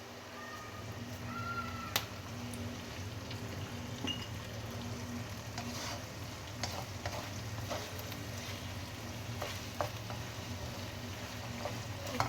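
Bitter gourd and egg stir-fry sizzling in a pan as it is stirred, with scattered clicks and scrapes of the spatula against the pan, the sharpest about two seconds in.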